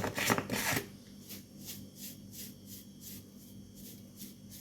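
A short loud rustle, then a salt shaker being shaken gently and evenly, about three soft ticks a second, as salt is sprinkled onto fish, over a steady low electrical hum.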